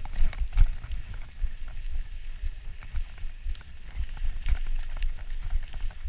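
Mountain bike descending a rough dirt and grass singletrack, heard from a camera worn by the rider: a constant low rumble of wind and tyres on the ground, with frequent knocks and rattles of the bike over bumps.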